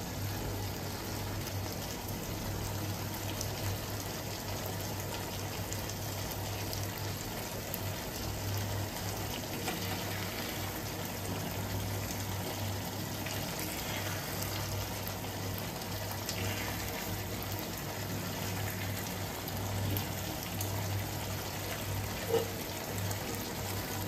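Hilsa korma gravy simmering in a nonstick pan, a steady bubbling hiss over a low hum, with the occasional soft scrape of a silicone spatula spooning the gravy over the fish.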